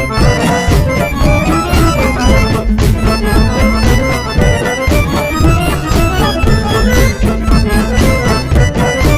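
Background music with a steady beat, led by bowed strings or accordion in a folk-like style.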